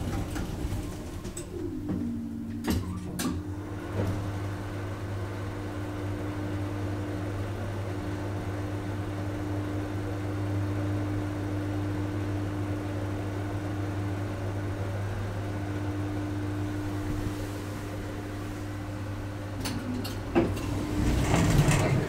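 A 1992 Schindler passenger elevator on one ride. The door closes with a couple of clicks and a short falling tone, then a steady hum runs while the cab travels for about fifteen seconds. Clicks and knocks near the end come as it stops and the door opens.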